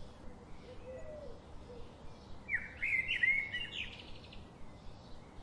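Faint bird chirping: a short run of quick chirps about two and a half seconds in, over a low background hiss.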